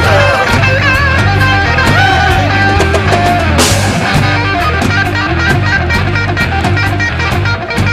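Rock band playing an instrumental passage: an electric guitar lead with bent, wavering notes over a steady drum kit beat and a low bass line, with a single bright high crash about halfway through.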